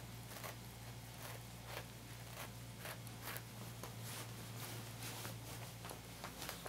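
Faint, irregular scratching and rustling: a cat's claws and paws scuffing a cloth kicker toy and the fabric around it as the cat hugs and kicks it, about two or three scuffs a second. Under it runs a steady low hum.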